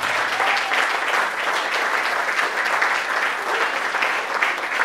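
Audience applauding, many hands clapping at once in a dense, steady wash.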